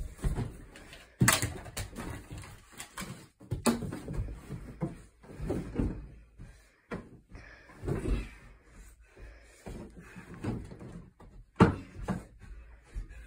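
Irregular thumps and knocks of a child running about a room and bumping around a couch, several of them sharp and loud.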